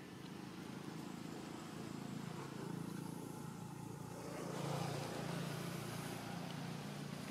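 Low, steady engine hum of a motor vehicle, swelling about four and a half seconds in and then easing.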